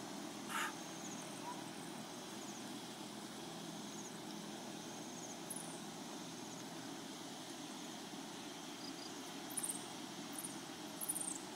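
Outdoor dusk ambience: a steady low rumble, with short high chirps and descending squeaks now and then, a few of them close together near the end.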